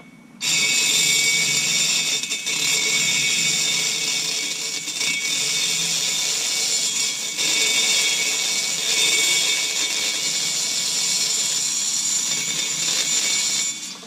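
Rotary grinder with a slow-speed E-type latch handpiece running under load, porting a chainsaw cylinder: a steady high whine that wavers a little as the bit bites. It starts about half a second in and stops just before the end.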